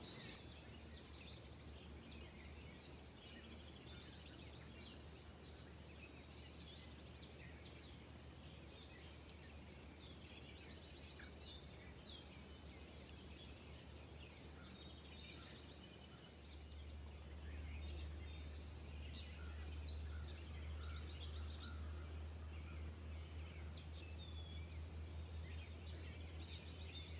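Outdoor ambience of many small birds chirping and twittering, over a low steady rumble that grows louder about two-thirds of the way through.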